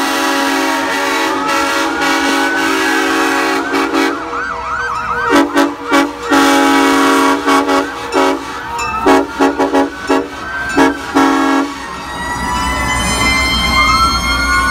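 Fire truck sirens wailing, rising and falling, with a warbling stretch about four seconds in. A chorded air horn sounds over them, held at first and then blown in a string of short blasts that stops about twelve seconds in. Near the end a siren winds up again.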